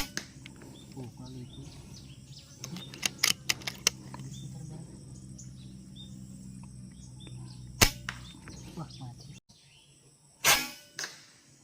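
Air rifle shots: a sharp crack about eight seconds in and a louder one near the end, each a single snap with a short tail, taken at ducks. Earlier come a few quick clicks, and faint bird chirps run underneath.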